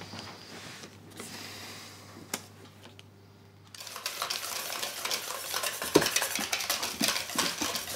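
A low steady hum of room tone at first. A little over halfway through, a utensil starts stirring briskly in a stainless steel mixing bowl, with rapid scraping and clinking against the metal and one sharper knock.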